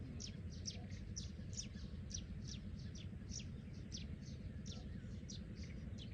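A bird calling over and over, short falling chirps about twice a second, over a steady low rumble.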